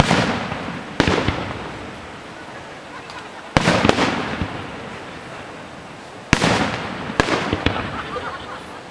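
Aerial fireworks shells bursting: five sharp booms, two close together at the start, one about three and a half seconds in, and two more near the end, each trailing off into a fading rumble with scattered crackles.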